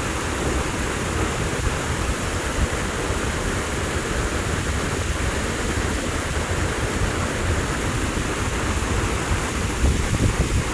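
Waterfall: a steady rush of falling water, with a few louder low bumps near the end.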